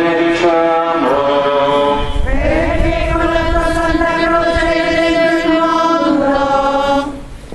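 A group of voices singing a slow hymn in long held notes, moving to a new pitch about one and two seconds in; the singing stops near the end.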